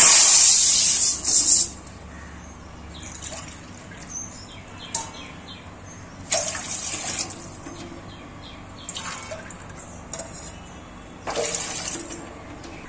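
Water poured from a metal tumbler into an aluminium kadai, splashing onto the pan in several separate pours: a long loud pour at the start, then shorter ones about six, nine and eleven seconds in.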